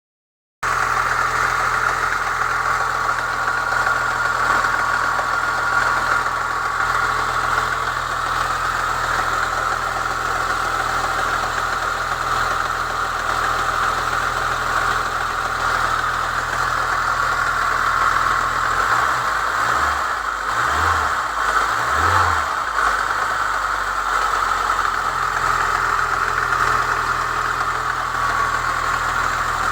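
Chevrolet Niva engine idling cold with a knock near the first cylinder, which the owner traced to a new Trialli tensioner; the knock goes away once the engine warms past about 60 degrees.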